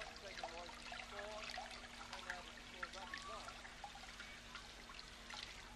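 Water running from a kitchen tap into a pot in the sink, trickling and bubbling, with a few small clicks.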